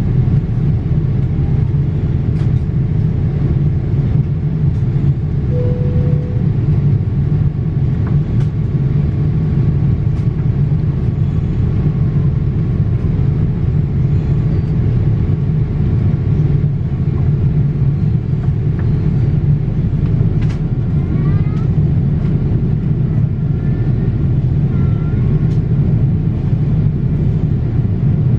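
Steady low rumble of a Boeing 787-8 airliner's cabin in flight: engine and airflow noise, with a few faint clicks on top.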